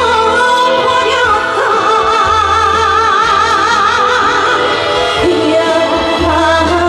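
Live ballad music through a concert PA: a band backing a female singer, who holds one long note with strong vibrato from about a second and a half in.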